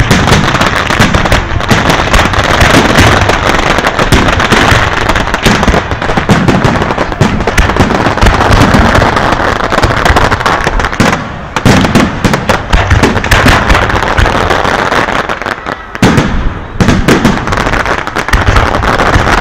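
Fireworks display: a dense, continuous barrage of rapid bangs and crackles from aerial shells bursting overhead, easing briefly about eleven and sixteen seconds in.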